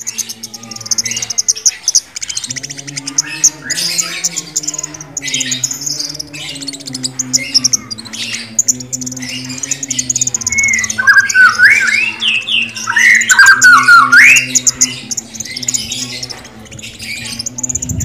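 Caged orange-headed thrush singing: fast, high chattering notes throughout, with a loud run of gliding whistled phrases in the middle.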